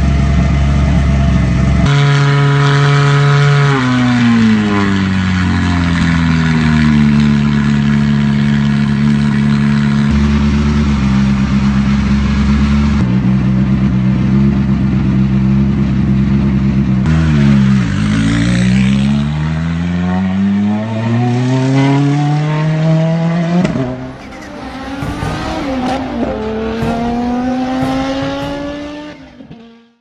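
Hyundai i20 R5's 1.6-litre turbocharged four-cylinder engine running with the car stationary, its revs rising and falling slowly and then holding steady between changes. Near the end a quieter sound with rising pitch takes over and fades out.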